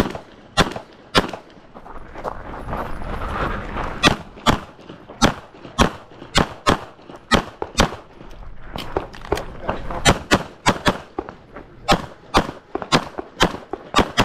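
Pistol shots fired in quick succession during a USPSA stage run, mostly about a third to half a second apart. Three shots open, then firing stops for nearly three seconds about a second in, then resumes in fast strings.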